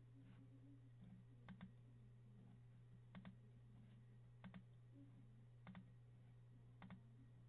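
Faint computer mouse clicks, five times, each a quick press-and-release pair, about every second and a half, over a steady low electrical hum in a quiet room.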